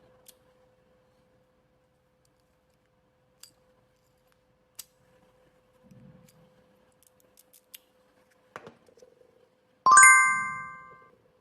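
Light scattered clicks of the freshly cut HYN14 key working in the lock, over a faint steady hum. Near the end comes one loud bell-like ding that rings out for about a second.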